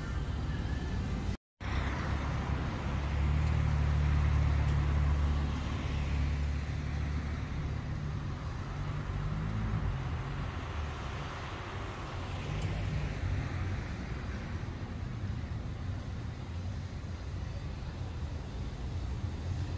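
Road traffic: after a brief dropout about a second and a half in, a car passes close with a low engine rumble and tyre hiss, a few seconds in, and another passes more faintly around the middle, over a steady traffic hum.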